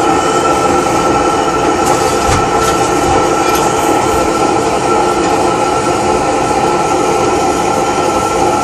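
Lanz Bulldog's single-cylinder two-stroke hot-bulb engine running steadily on its first start in decades.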